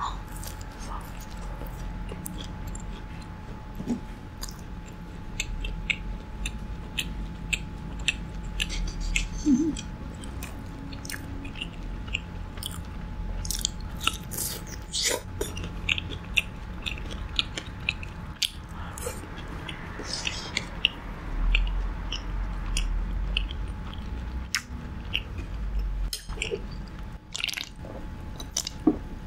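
Close-miked biting and chewing of crispy battered fried food, with many irregular sharp crunches throughout. A faint steady tone runs underneath.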